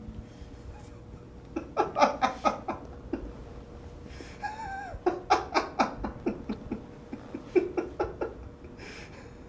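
A person laughing in three bouts of short, rapid bursts.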